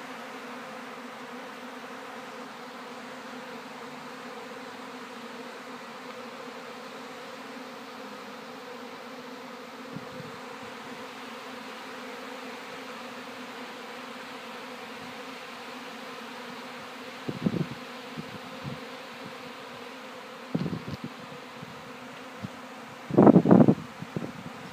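Swarming honey bees in the air give a steady, continuous drone. A few brief louder bumps break through about two-thirds of the way in, the loudest near the end.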